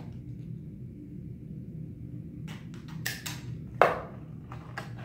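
Sharp clicks and snips from cutting a thin plastic strip with snips and handling the pieces on the tabletop: a few short strokes, the loudest near the end, over a steady low hum.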